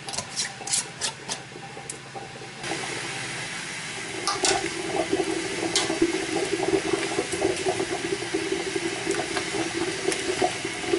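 A few light metallic clicks as screw bands are tightened on glass mason jars. Then, a couple of seconds in, a steady rush of hot water bubbling in an aluminium pressure canner, with glass clinks as jars are lowered into it with a jar lifter.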